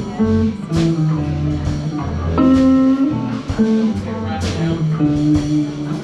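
Live band playing a blues-style number: guitar notes over bass and regular drum hits.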